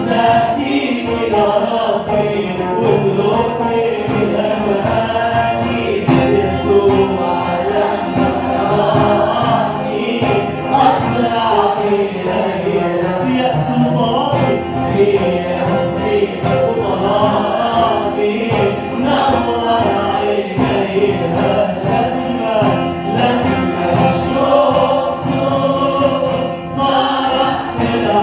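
Arabic Christian hymn music with choir-like singing over instrumental accompaniment.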